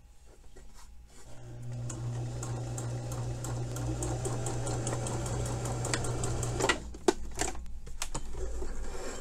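Electric domestic sewing machine stitching close to the fold of a narrow hem. The motor starts about a second in, runs steadily with an even ticking of the needle for about five seconds, then stops. A few sharp clicks follow.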